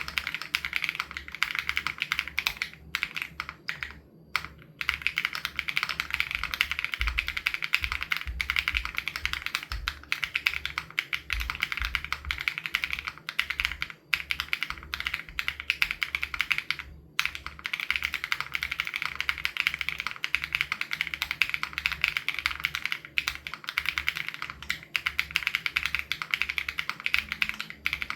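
Continuous fast typing on an SPM AL87B mechanical keyboard with BSUN Raw switches, a dense stream of keystrokes with brief pauses about four seconds in and again just past the middle.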